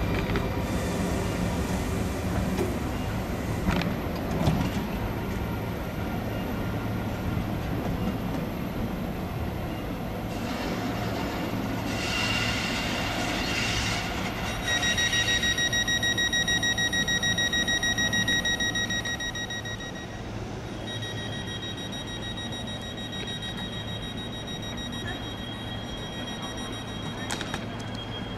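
SBB electric locomotives running over the points of a busy station throat: a steady rumble with a knock a few seconds in. From about halfway, train wheels squeal on the curves in a long, high, steady tone, the loudest part, and a second squeal follows until near the end.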